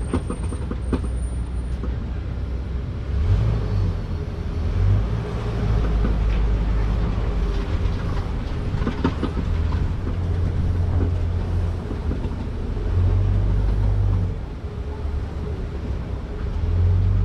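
Safari ride vehicle driving along its track: a low rumble of engine and wheels that swells and eases several times, with a few faint knocks.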